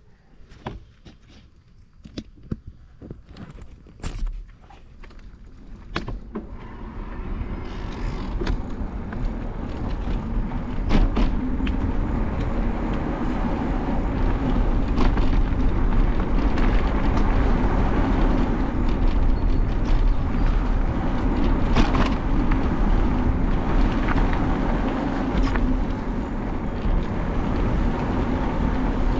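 Wind noise on the microphone and tyre rolling noise of an e-bike riding on an asphalt lane. It starts quiet with a few scattered clicks and knocks, grows louder over about six seconds, and then holds steady.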